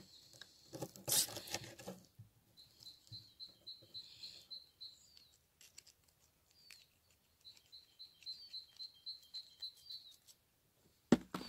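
A knife scraping scales off a fish on a wooden board, loudest about a second in. A small bird sings two runs of quick, repeated high chirps, about five a second.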